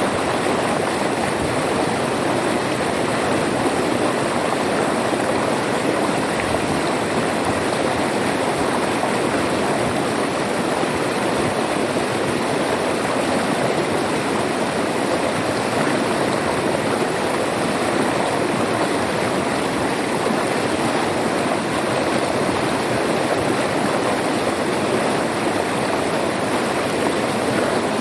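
River water flowing over rocks: a steady, unbroken rushing with no pauses.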